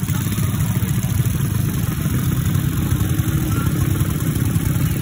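An engine idling steadily, an even low rumble with no change in speed.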